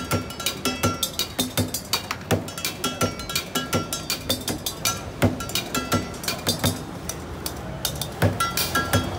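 Street drumming on an improvised kit of cooking pots, pans, plastic buckets and cymbals, played with sticks in a fast, steady rhythm of several strikes a second, with metallic clanks and ringing.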